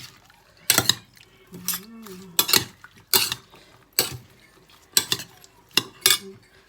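Utensils clinking against a bowl while tossing and mixing a seafood salad, about eight sharp clinks at irregular intervals, roughly one a second.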